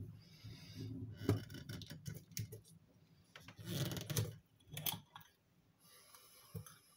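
Hands working a glass jar with a screw lid and copper tubes: scattered clicks and knocks, with a longer scraping rustle about three to four seconds in as the lid is twisted.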